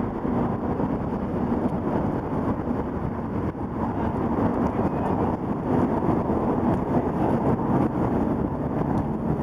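Steady low outdoor noise of city traffic, mixed with wind buffeting the phone's microphone.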